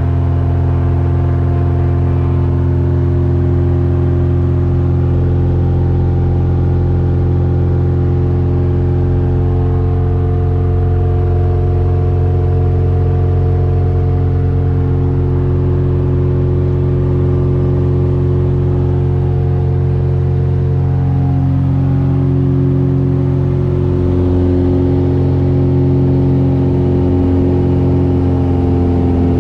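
Single-engine Mooney M20F's fuel-injected four-cylinder 200 hp Lycoming IO-360 engine and propeller running steadily at high power, heard inside the cockpit. The engine note shifts slightly in pitch about three quarters of the way through.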